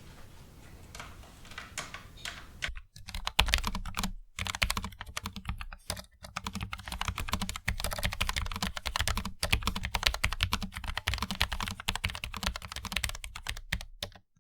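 Fast typing on a Logitech MX Mechanical Mini low-profile mechanical keyboard: a few light key clicks, then from about three seconds in a dense run of keystrokes with brief pauses, stopping just before the end.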